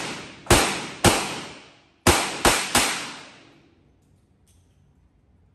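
Revolver firing five shots, each echoing and fading slowly in an indoor range. The first two come about half a second apart, then after a one-second pause three more come in quick succession.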